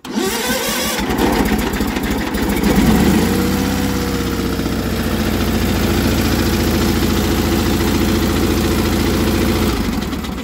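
John Deere 318 garden tractor's air-cooled two-cylinder Onan engine started on the key and catching at once, revving up briefly, then settling into a steady idle, freshly tuned and starting easily. It is switched off near the end and runs down.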